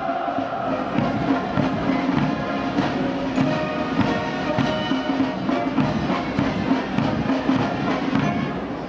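Military brass band playing a march, with a steady drum beat under sustained brass chords.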